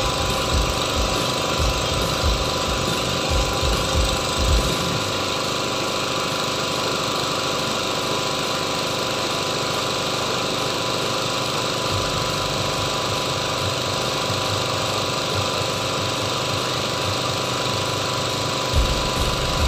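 An engine running steadily, with low rhythmic thumping in the first few seconds and again near the end.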